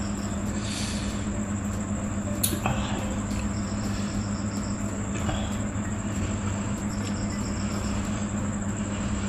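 Steady low hum with insects chirping in short rapid trains every few seconds, and a single sharp click about two and a half seconds in.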